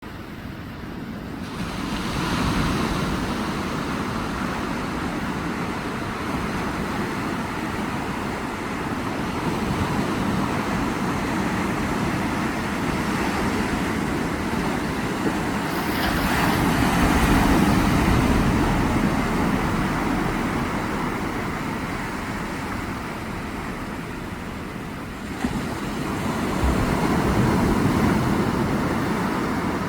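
Ocean surf: a continuous rush of breaking waves that swells into louder crashes three times, roughly ten seconds apart.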